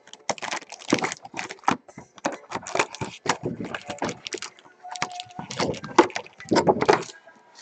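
A trading-card hobby box being opened by hand: irregular crinkling and rustling of its plastic wrap and cardboard as the foil packs are taken out.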